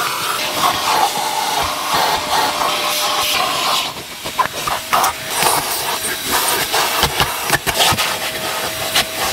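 Vacuum cleaner running, sucking air with a steady hiss and a thin whine, while its nozzle is worked over a car's interior trim and carpet with scattered clicks and knocks, busiest through the middle.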